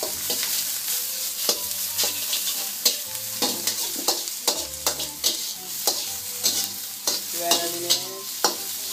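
A spatula scraping and clacking against a steel wok in quick, irregular strokes while tofu and shallots are stir-fried in oil, over a steady sizzle.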